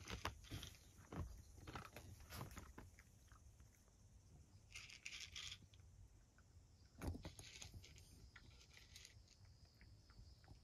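Cat crunching dry kibble, a faint run of small crunchy clicks, with one louder knock about seven seconds in.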